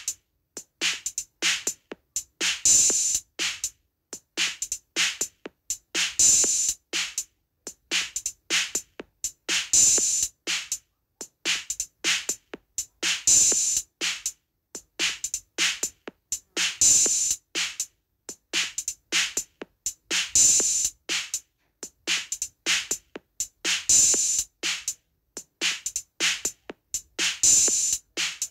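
Rhythmic drum beat for halay dancing: a short pattern of drum strokes looping unchanged, with a loud, bright accented stroke about every three and a half seconds.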